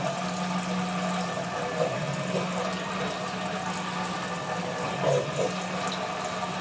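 Sump pump running in the pit: a steady electric motor hum with water churning as it tries to lift water up the discharge pipe.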